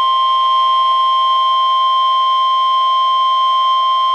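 NOAA Weather Radio warning alarm tone, a steady single pitch near 1050 Hz, sounding the alert for a flash flood warning. Fainter steady tones, one lower and one higher, run along with it.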